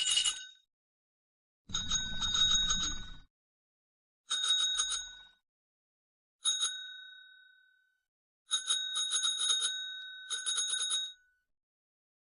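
A small metal bell rung in several bursts of rapid strikes, with silence between them. Near the middle there is a single strike that rings out for over a second, and near the end a longer stretch of fast ringing.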